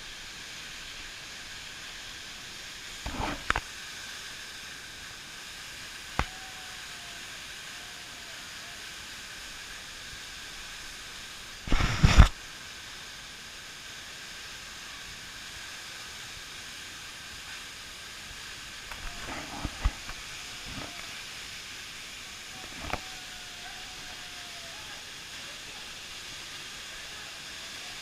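Steady rushing noise of a waterfall, broken by a few sudden knocks or thumps. The loudest comes about twelve seconds in.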